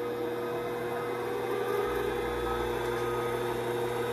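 Vevor 7x14 mini lathe's variable-speed motor running with a steady hum as the speed knob is turned up; about two seconds in a low rumble joins as the spindle and chuck spin up.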